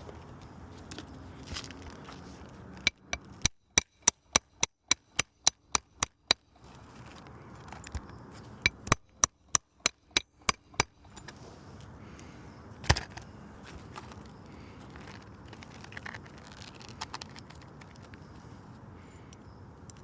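A hammer driving nails into a roof shingle: two quick runs of strikes at about three blows a second, then one hard single blow.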